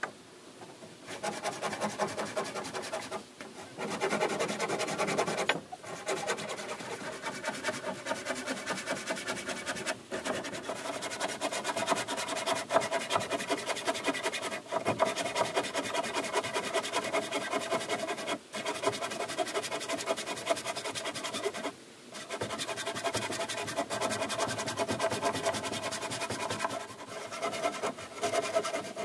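Hand saw cutting through a wooden plank in quick back-and-forth strokes, with several brief pauses between runs of strokes.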